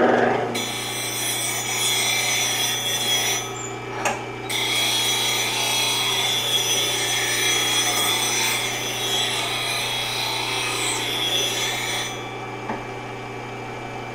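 Delta bench grinder running with a steady hum while a spindle gouge is ground in a sharpening jig: steel rasping against the spinning wheel, with a short break about four seconds in. The grinding stops about two seconds before the end while the motor keeps running.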